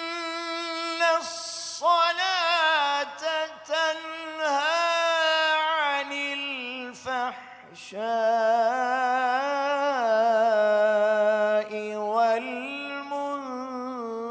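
Solo male voice reciting the Quran in the melodic, melismatic tajweed style: long held notes that waver and ornament, in phrases broken by short pauses for breath.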